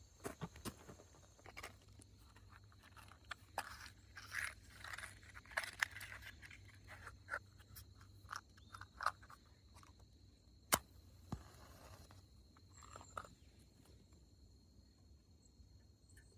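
Scattered rustling, crunching and scraping of things being handled, with light clicks and one sharp click about eleven seconds in; it thins out in the last few seconds.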